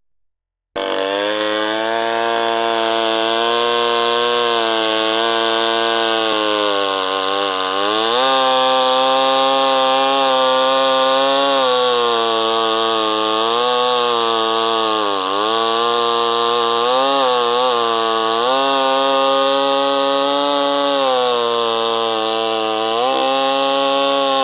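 Echo 1201 chainsaw running at high revs while cutting wood, its engine pitch dipping several times as the chain bogs under load and then recovering. The sound comes in suddenly just under a second in.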